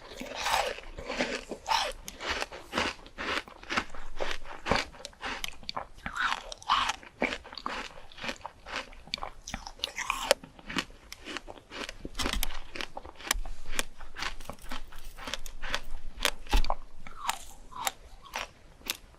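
Person chewing crunchy fruit, a quick irregular run of crisp crunches and bites.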